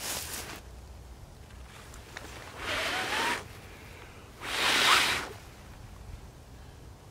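Two breaths blown onto a piece of smouldering tinder to feed the ember, the second louder, each with a faint rising whistle. A short rustle at the start as the tinder is picked up.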